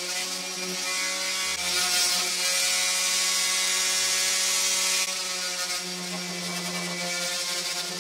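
DeWalt random orbital sander running against a pressure-treated pine block, a steady motor hum under a hissy sanding noise. The sound grows louder and hissier for a few seconds midway and drops back abruptly about five seconds in.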